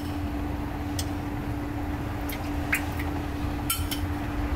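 Tamarind water heating in a steel wok on a cooktop, with a few faint ticks and pops from the liquid over a steady hum and low rumble.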